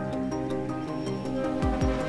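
Instrumental background music with steady held notes, and two low drum hits near the end.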